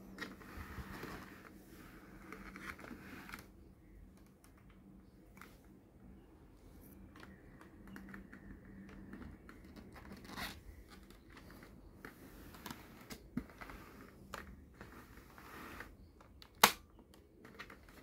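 Hard plastic parts of a toy transformation belt being handled: scattered small clicks, taps and rubbing as it is turned over and worked at, with one sharp snap of plastic near the end. A faint steady hum runs underneath.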